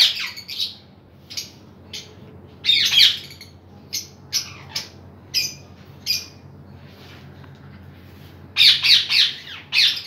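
Caged parrots squawking in short, sharp high calls, with dense loud clusters about three seconds in and again near the end, over a faint steady low hum.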